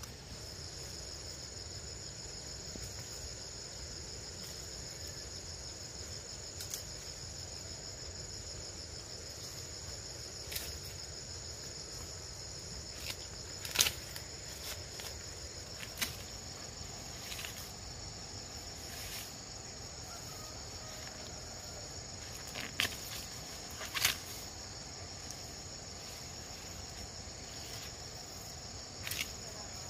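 Steady high-pitched insect chorus, with sharp snaps and crackles every few seconds as dry leaves are pulled and broken off cane stalks by hand; the loudest snaps come about halfway through and again about 24 seconds in.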